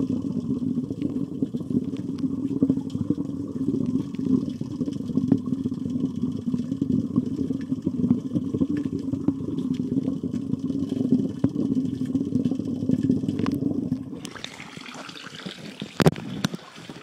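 Steady, muffled low rushing of water as heard by a phone microphone held under the surface of a koi pond. About fourteen seconds in the rush drops away to a thinner, quieter hiss, and near the end a few sharp knocks come as the phone is moved about.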